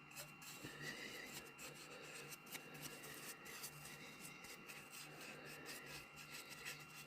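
Faint, irregular scraping strokes of a hand tool working the wood of a kuksa cup, with a low steady hum underneath.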